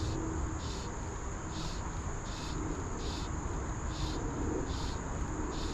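Insects calling: a steady high-pitched trill, with separate chirps repeating a little more than once a second, over a low, steady rush of creek water.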